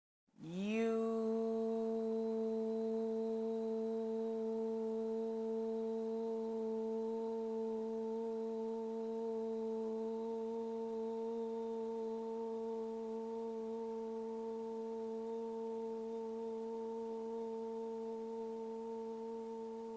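A woman chanting the syllable "you" as one long, loud, unbroken tone held at a steady pitch, sliding up into the note at the start. It is a sound-purification chant aimed at the heart chakra.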